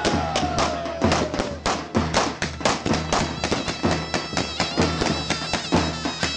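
Live folk dance music: a drum beating steady, fast strokes under a reedy wind instrument's melody.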